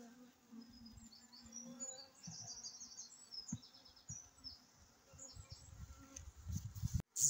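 Honeybee colony in an open nuc box buzzing with a low, steady hum, which the beekeeper hears as nice and quiet: a calm colony that does not sound queenless. A few low thumps near the end.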